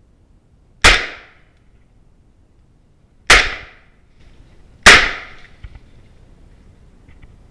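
Three very loud rifle shots fired at a wild boar crossing at a few metres: the first about a second in, the next two about two and a half and one and a half seconds after it, each with a short echoing tail.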